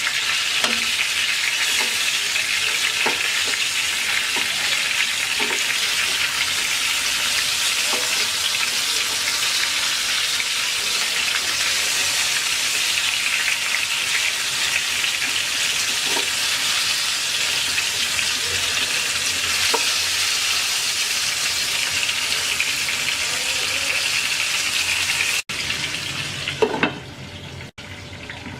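Spice-coated aubergine quarters shallow-frying in hot oil in a karahi: a steady loud sizzle with a few faint clicks. Near the end the sizzle suddenly drops much quieter, with a couple of clicks.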